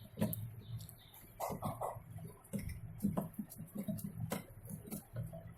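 Scattered light clicks and knocks as washing machine parts are handled and fitted. A short animal call, like a chicken's cluck, comes about one and a half seconds in.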